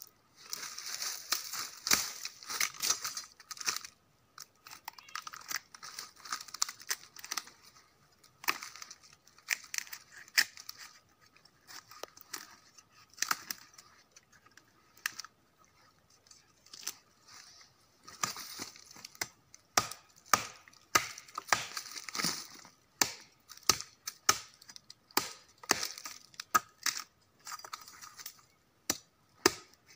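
Machete chopping and prying into a dead, fibrous palm stump: irregular sharp chops with stretches of tearing and scraping as the soft rotten fibres are cut and pulled apart.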